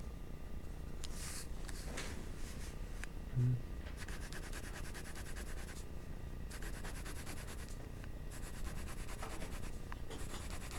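Graphite pencil scratching on paper in three runs of rapid back-and-forth shading strokes, after a few single strokes, with a brief low thump about three and a half seconds in.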